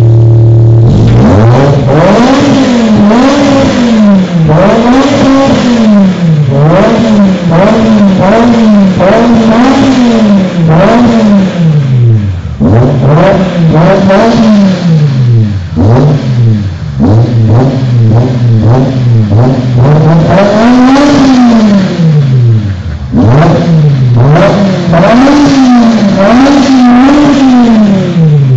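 BMW E60 M5's V10 engine being revved hard, again and again, each rev rising and falling within a second or two. There are short dips near the middle and near the end.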